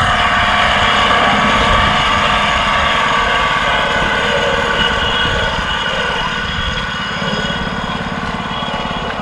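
Small motor running steadily at even speed: a high whine with many overtones over a fast low pulsing.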